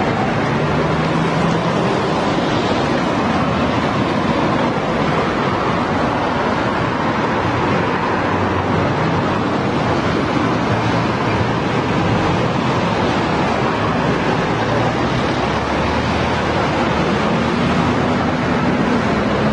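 Steady road traffic: a continuous wash of tyre and engine noise from passing vehicles, with low engine hums that rise and fall now and then, most clearly near the start and near the end.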